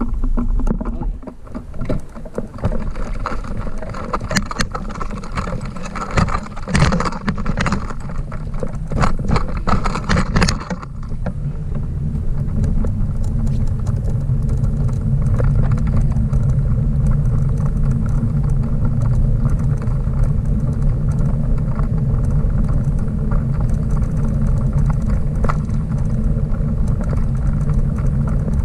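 Dog bike trailer heard from inside its cabin: irregular knocks and rattles for about the first ten seconds, then a steady low rumble of the trailer rolling over pavement.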